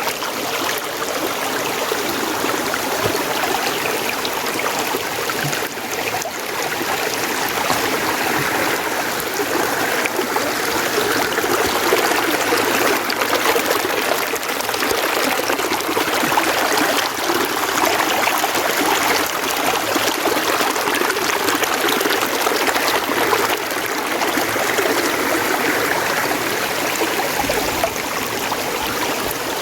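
Mountain stream running over rocks, a steady rush of water with trickling on top.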